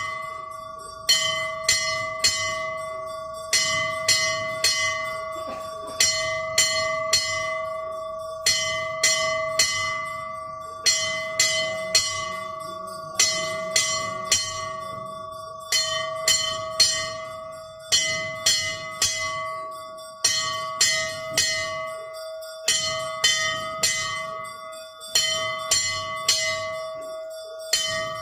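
Temple bells ringing in quick clusters of three or four strokes, repeating very evenly about every two and a half seconds, with a steady ringing tone held underneath.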